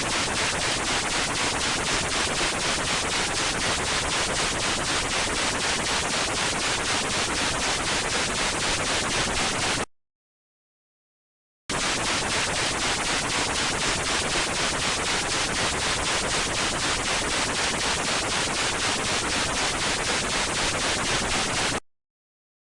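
Static noise sound effect: a loud, even hiss that pulses rapidly and regularly. It plays in two stretches of about ten seconds each, with a short silent gap between them.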